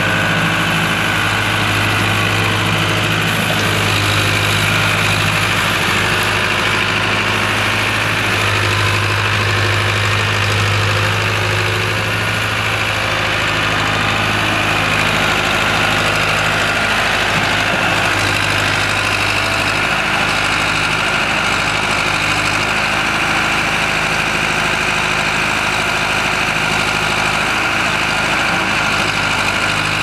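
Escorts Powertrac 4455 tractor's diesel engine running steadily at one even speed, a constant low hum.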